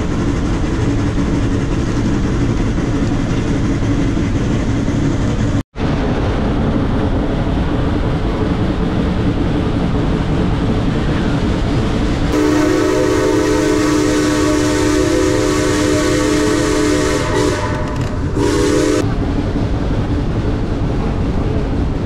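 Steam locomotive and train running with a loud, steady noise. Its steam whistle sounds a chord of several notes: one long blast of about five seconds past the middle, then a short blast. The sound cuts out for an instant just before six seconds in.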